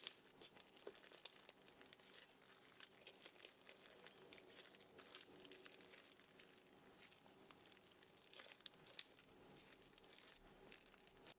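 Hands squishing and pressing bead slime packed with plastic beads, a faint, irregular run of small crackling clicks and pops, the sharpest right at the start.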